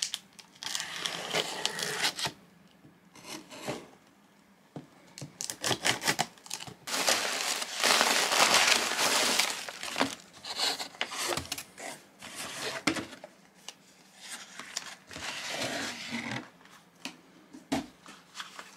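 Scissors slitting the packing tape on a cardboard box, then cardboard flaps and plastic air-pillow packing crinkling and rustling as the box is unpacked, with the longest, loudest crinkling about seven to ten seconds in.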